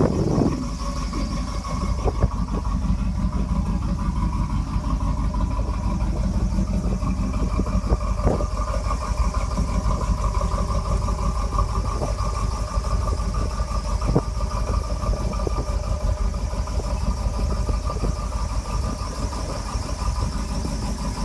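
Stock Chevrolet 305 small-block V8 idling steadily.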